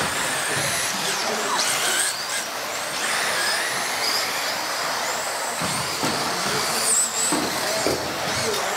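Several radio-controlled offroad model cars racing together, their motors whining up and down in pitch as they accelerate and brake, over a steady hiss of tyres on the track.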